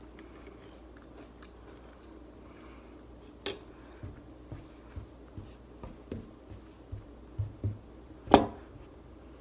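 Hands pawing and patting at the table around a cereal bowl in a cat-like burying motion: soft thumps and taps about two a second from about four seconds in, with a sharp click earlier and a louder sharp knock a second before the end.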